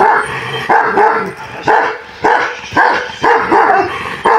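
Kangal shepherd dog barking repeatedly, about two barks a second.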